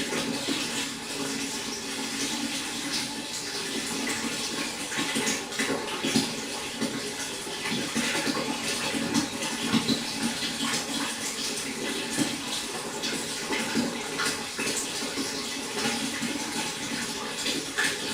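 Pond water splashing and trickling continuously, a steady even rush with many small irregular splashes.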